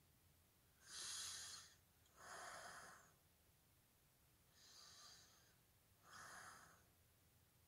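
Faint breathing close to the microphone: two pairs of breaths, in and out, each under a second long, with a pause between the pairs.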